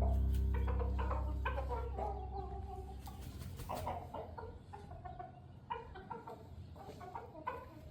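Chickens clucking in short, scattered calls. A low steady hum fades out over the first couple of seconds.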